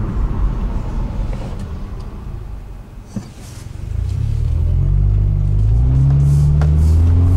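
2009 Subaru Forester 2.5X's naturally aspirated flat-four, breathing through a cold air intake and MagnaFlow mufflers, heard from inside the car. A low rumble fades as the car slows, there is a click about three seconds in, then the engine note rises steadily as the car accelerates.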